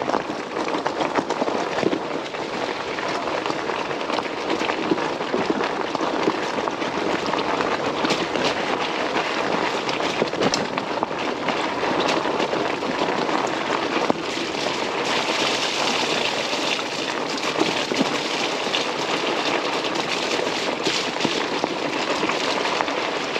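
Fat 4-inch tires of an electric bike rolling downhill over a wet gravel and dirt trail: a steady gritty rush with a constant stream of small crunches and crackles.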